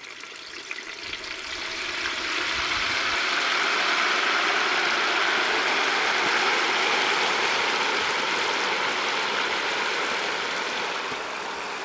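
Hot frying oil at about 350°F sizzling and bubbling hard as a whole turkey is lowered into it, building up over the first couple of seconds into a steady hiss that eases slightly near the end.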